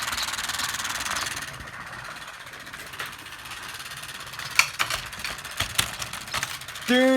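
Small electric motor of a toy engine whirring steadily with a hiss, louder for the first second or so, then a quick run of sharp clicks and rattles in the second half.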